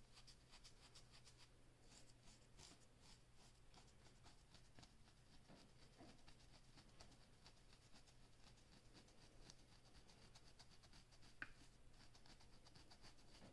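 Faint, rapid scratching of a fine-toothed comb's teeth across a short-haired scalp, stroke after stroke, scraping dandruff flakes loose. One sharper click comes near the end.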